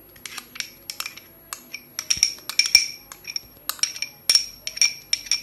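A metal spoon clinking and scraping against a glass bowl as whipped cream is scraped out of it: a run of light clinks, each ringing briefly, sparse at first and coming two or three a second from about two seconds in.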